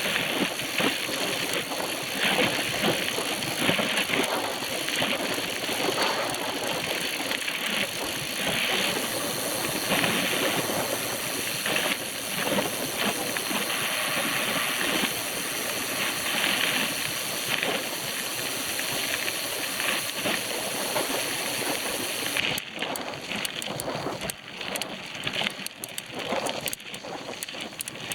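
Noise of a bicycle being ridden over rough ground: a steady rushing hiss with loose rattling. The high hiss drops away abruptly about three-quarters of the way through.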